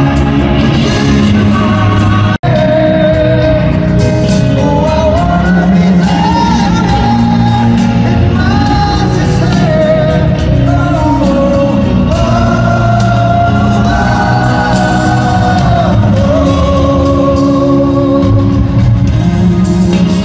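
Live rock band playing in an arena, with a lead singer's melody over the band, heard loudly through the PA in a large echoing hall. The sound cuts out for an instant about two seconds in.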